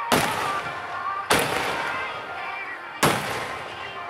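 Aerial fireworks shells bursting: three sharp booms about a second and a half apart, each dying away slowly.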